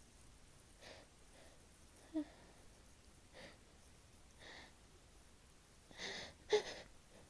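A person's quiet, catching breaths and sniffs during a sneezing fit, with two brief voiced squeaks in the breath. The louder squeak comes about six and a half seconds in, within a cluster of sharper breaths.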